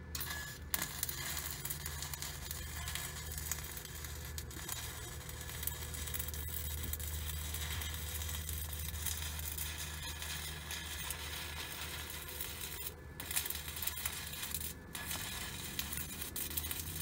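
Stick welder's arc crackling and sizzling steadily as a rod burns along a steel crossmember weld. It strikes about a second in and breaks off briefly twice near the end.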